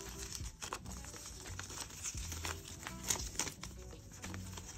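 Paper banknotes being counted and shuffled by hand: a run of short, crisp rustles and flicks as bills are leafed through.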